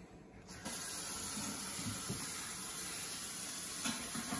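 Steady hiss of water that starts suddenly about half a second in.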